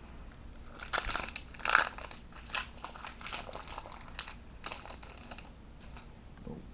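Plastic wrapper of a trading card pack being torn open and crinkled, a run of irregular crackles with the sharpest pops in the first two seconds.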